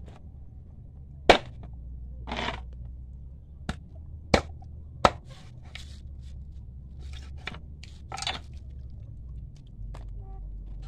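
Bolo knife chopping through a large eel onto a wooden board: a handful of sharp chops, the loudest about a second in and three more between about three and a half and five seconds, with softer noises from handling the fish between them.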